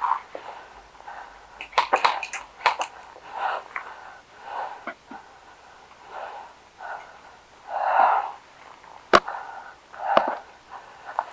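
Heavy, wheezy breathing, close to the microphone, in repeated swells, broken by sharp clicks and cracks: a quick cluster about two seconds in and two loud single cracks near the end.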